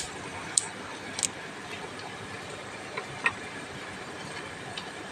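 Steady hiss of a pot of water on the boil, with a handful of sharp, light clicks as small things knock against the pot.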